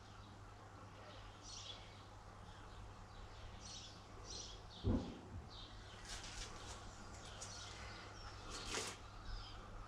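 A small bird chirping repeatedly with short high calls, and a single dull thump about five seconds in.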